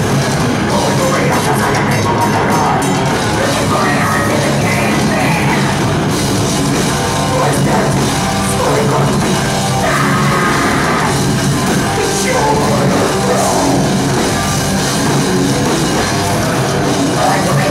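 Live heavy metal band playing loud and fast: distorted guitars, bass and pounding drum kit, with shouted vocals at times, heard through a camcorder's microphone in the crowd.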